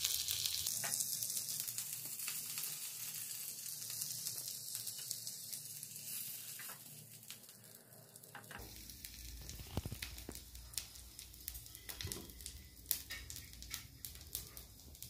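Chicken leg pieces sizzling in oil on a hot dosa tawa, the hiss fading over the first half. Later, several short metallic clicks and taps as metal tongs set the pieces on a steel plate.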